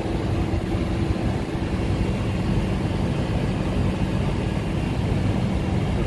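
Steady low machinery hum and rumble with a faint held tone, unchanging throughout.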